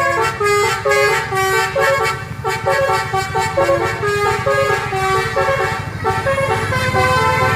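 Bus 'telolet' basuri multi-tone air horn playing a melody of short notes that step up and down in pitch, with the bus engine running steadily underneath.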